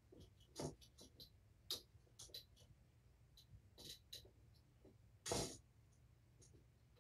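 Kittens playing on a carpeted floor: scattered light clicks, taps and scuffles, with one louder brief rustling scuffle about five seconds in.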